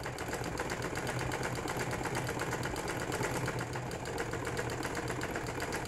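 Sewing machine stitching steadily, a rapid, even clatter of the needle over a low steady hum, as cloth is sewn onto a garment panel.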